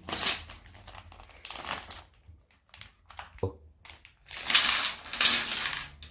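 Toy packaging being pulled open, crinkling and rustling in short bursts and then a longer stretch near the end, with one sharp click in the middle.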